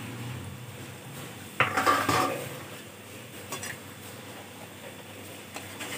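Metal ladle clinking and knocking against a steel pot as thick curry with pakoras is stirred: a burst of loud clanks about one and a half seconds in, then a few lighter clicks.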